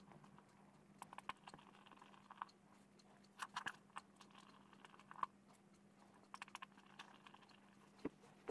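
Faint clicks and scrapes, in short irregular clusters, of a small Torx screwdriver turning the screws out of the back of a Nokia 500 phone, over a faint steady hum.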